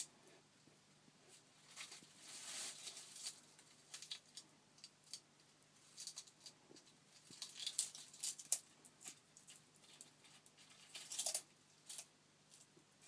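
Argentine black and white tegu eating: irregular crunches, clicks and short scrapes as it bites and chews a piece of food.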